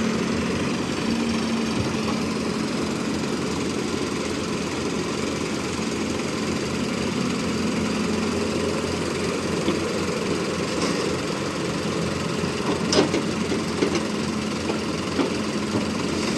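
Excavator engine running steadily under load, with a few short sharp knocks in the second half.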